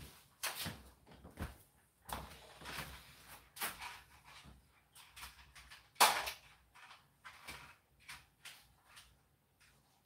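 Irregular knocks and clatter with short stretches of rustling, and one sharp knock about six seconds in that is the loudest.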